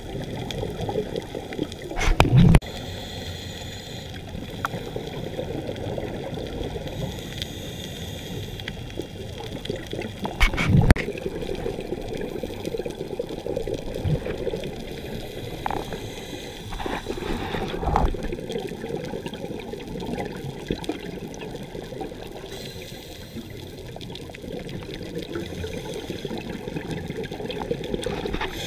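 Underwater sound through a camera's waterproof housing: a steady hiss with faint crackling, broken by louder rushes of scuba exhaust bubbles from a diver's regulator about two seconds in, again around ten seconds, and more weakly near eighteen seconds.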